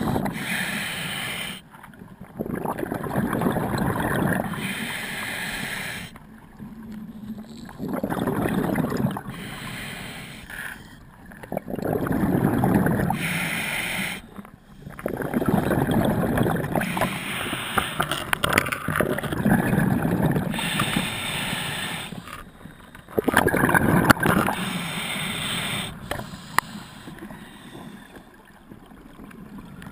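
Scuba diver's regulator underwater: bursts of exhaled bubbles gurgling a second or two at a time, with quieter gaps in between, repeating every few seconds with each breath.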